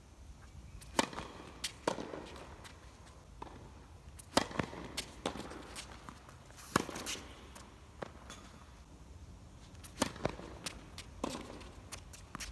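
Tennis rally on an outdoor hard court: a serve struck about a second in, then sharp pops of racket strings hitting the ball every few seconds, with fainter ball bounces, the far player's hits and footsteps between them.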